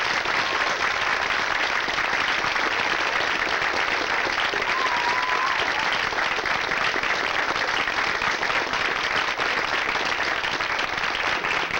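Concert audience applauding, with one short whistle about five seconds in; the applause cuts off suddenly at the end.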